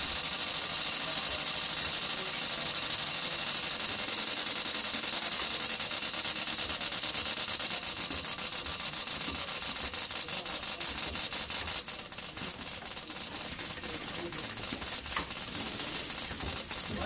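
Pneumatic peg-sorting machine running: a steady hiss of air with rapid, evenly spaced clicking. About twelve seconds in the hiss drops quieter and the clicks stand out more.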